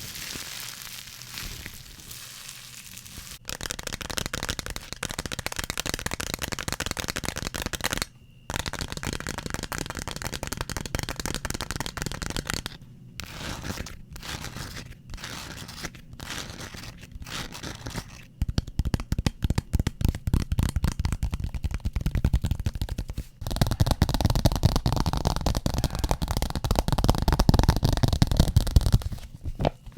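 A run of ASMR triggers: fast tapping and scratching on different objects, with crinkly, tearing-like textures. The sound changes abruptly every few seconds as one object gives way to the next.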